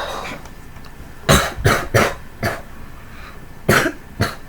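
A person coughing: a run of four short coughs, then two more a little over a second later.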